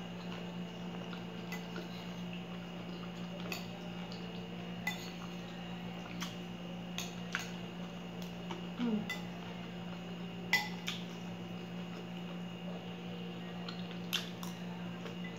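Metal fork clinking and scraping against a ceramic salad bowl while eating: scattered light clinks every second or so, the loudest about ten and a half seconds in, over a steady low hum.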